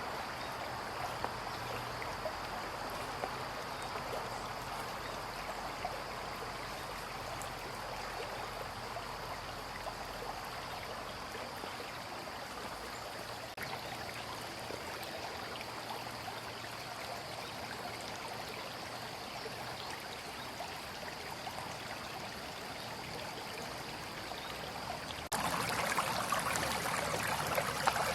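Babbling brook: water running steadily. About 25 seconds in it cuts abruptly to a louder, fuller rush of the stream.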